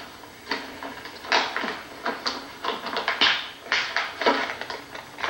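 An irregular series of short knocks and clicks, about two a second: small objects being handled.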